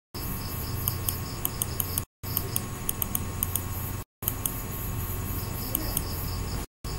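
Computer mouse scroll-wheel ticks, a few sharp irregular clicks, over a steady background hiss and low hum with a faint, rapid high chirping. The sound cuts out completely for a moment three times.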